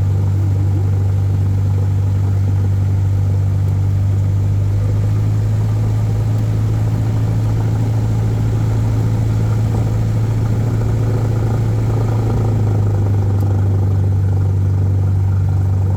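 Airplane engine droning steadily in flight, a constant low hum with no change in pitch, heard from inside the cabin.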